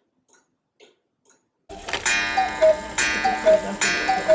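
Black Forest cuckoo clock: the pendulum ticking softly about twice a second, then, about a second and a half in, the clock starts calling the hour. Each call is a struck gong ringing out followed by the two-note cuckoo call falling in pitch, about three times in quick succession.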